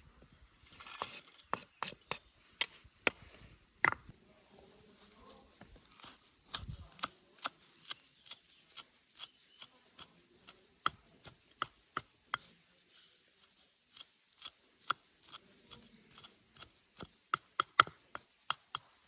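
Knife chopping food on a cutting board: sharp single strokes, about two a second through the middle, pausing briefly, then coming quicker and louder near the end.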